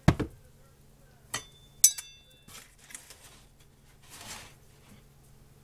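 Kitchen utensil handling around a skillet: a dull knock, then a couple of clinks from a metal measuring spoon, the second one sharp with a brief metallic ring, and a soft rustle near the end.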